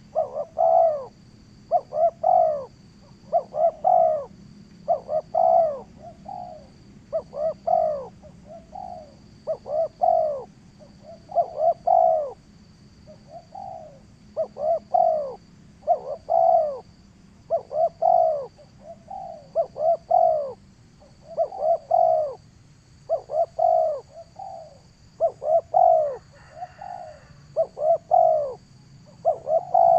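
A bird calling over and over, a short burst of two to four cooing, arched notes about every second, steady and insistent.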